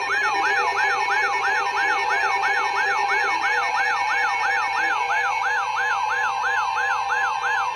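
Several NOAA weather radios sounding their alert alarms at once. A fast warbling siren rises and falls about three times a second over steady held alert tones, signalling an incoming warning. A lower pulsing beep from another radio stops about three seconds in.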